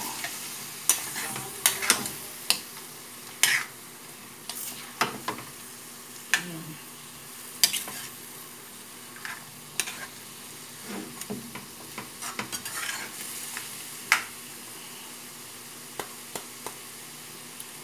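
Chicken pieces sizzling in a metal wok over a gas flame while a metal spatula stirs them, scraping and knocking against the pan at irregular intervals. The stirring strokes thin out near the end to a few light taps over the steady sizzle.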